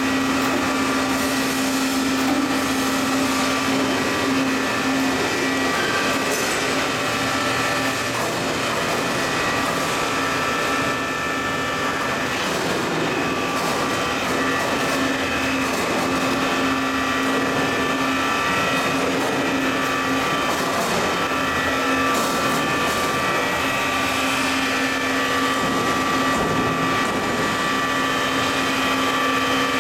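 Single-screw polystyrene extrusion line running: a constant loud machine din with a steady low hum and a few thin, steady high whines over it.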